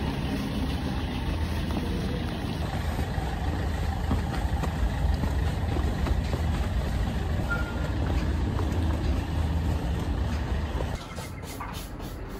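Outdoor street ambience: a steady low rumble with an even hiss over it, dropping in level about eleven seconds in.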